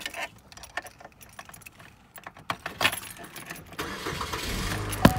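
Car keys jangling and clicking in the hand for the first few seconds, then a car engine comes on with a steady low rumble about four seconds in, and a single sharp thump just before the end.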